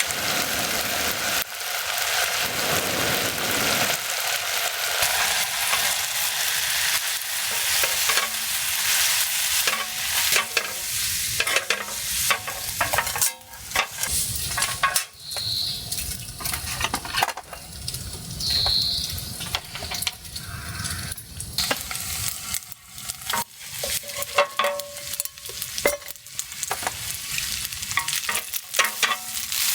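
Food sizzling and frying in a pan, being stirred. A dense sizzle for about the first twelve seconds thins into scattered pops and clicks.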